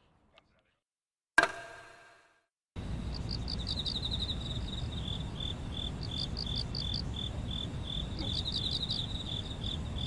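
Chorus of autumn insects, crickets chirping in a steady pulsing rhythm with faster trills over a low background hiss, starting about three seconds in. Before it, a single sharp ringing hit about a second and a half in, fading away within a second.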